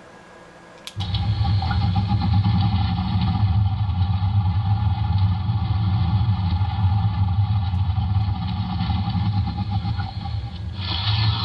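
Extended startup sequence from the HO-scale Broadway Limited Great Northern S-2 steam locomotive's sound decoder, played through the model's speaker. It starts suddenly with a click about a second in, then runs as a steady hiss over a low hum with a constant tone, changing near the end.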